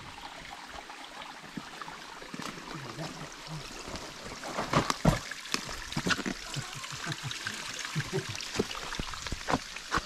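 Creek water trickling over rocks, with scattered scrapes and knocks of a person climbing down the wet rock face, loudest about five seconds in.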